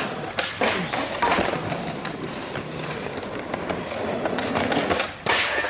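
Skateboard wheels rolling on asphalt, with several sharp clacks of the board hitting the ground.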